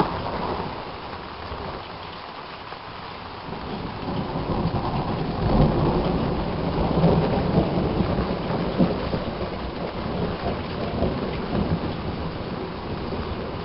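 Thunder from a lightning strike on a nearby TV tower. It rumbles in low, builds about four seconds in, peaks around six seconds and then rolls off slowly, over steady rain.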